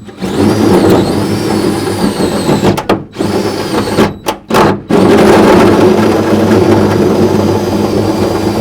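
Electric drill running under load, cutting a hole through the metal truck bed. Its motor whine sags in pitch as it bites, and the trigger is let off and squeezed again several times about three to five seconds in.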